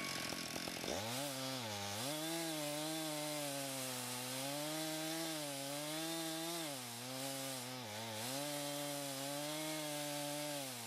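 Two-stroke chainsaw mounted in a chainsaw mill, running at full throttle as it rips lengthwise through a large timber beam. The engine note sags briefly a few times as the saw is loaded in the cut.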